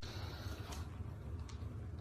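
Quiet room noise: a low steady hum with a couple of faint ticks.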